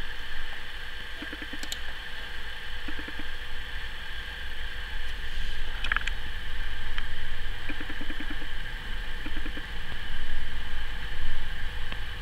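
Steady low rumble and hiss of background noise, with a few faint clicks and short ticking patters.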